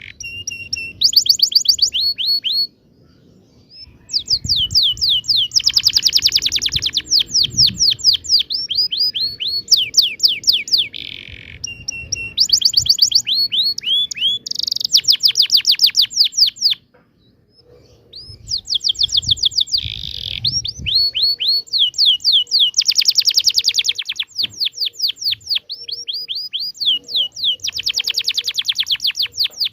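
Domestic canary singing a long rolling song of rapid trills, each phrase a fast run of repeated falling notes. The song breaks off briefly about three seconds in and again around seventeen seconds, then resumes.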